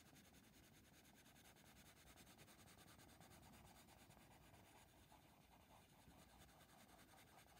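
Faint scratching of a soft coloured pencil (Derwent Coloursoft) stroked back and forth over paper, laying on a light coat of colour.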